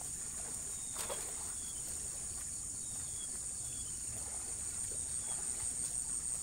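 Steady high-pitched drone of insects, crickets or cicadas, with a few faint short falling chirps and a soft knock about a second in.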